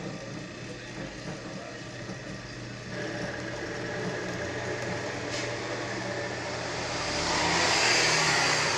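Bench drill press motor running steadily with a low hum. Near the end a louder hiss swells up as the bit bores into a wooden board.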